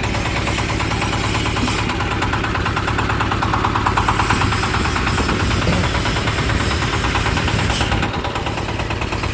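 Small single-cylinder diesel engine running steadily with a knocking beat, driving a trailer-mounted bandsaw through a belt on its test run. There are two brief clicks, about 2 s and 8 s in.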